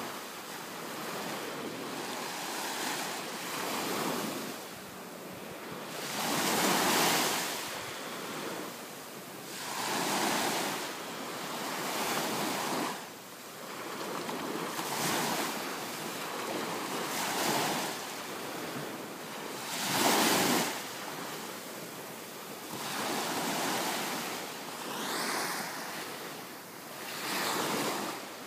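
Ocean surf: small waves breaking and washing up the beach, the rush swelling and easing every two to three seconds.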